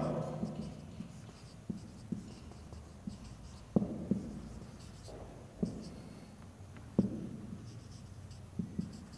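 Marker pen writing on a whiteboard: faint, short strokes and taps, about eight of them spread unevenly, as letters are written.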